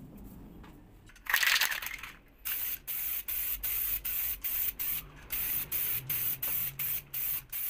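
Aerosol spray can of activator hissing over hydro-dip carbon film to dissolve it for the dip. A longer spray comes about a second in, followed by quick short puffs about three a second.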